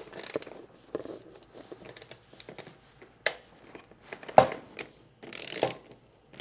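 Torque wrench being worked on a busbar nut: scattered light clicks and knocks of the tool and metal parts, a sharp knock about four seconds in, and a short burst of ratcheting near the end as the nut is tightened toward its 20 N·m spec.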